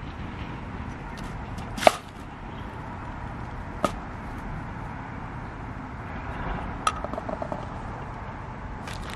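Cooking utensils knocking during food preparation: three sharp knocks, the loudest about two seconds in. The last, near seven seconds, has a short ring and a few small clicks after it.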